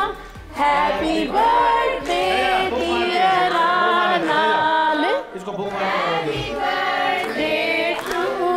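A group of voices singing together, holding long notes, with two short breaks between phrases.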